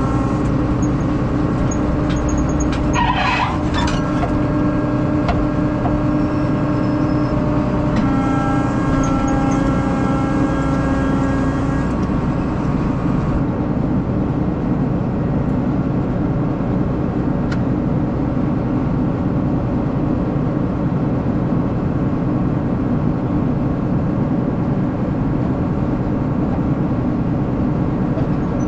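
A vehicle engine running steadily at an even speed, with a brief hissing squeal about three seconds in.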